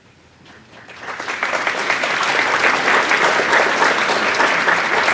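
Audience applauding, starting about a second in and quickly building to a full, steady round of clapping.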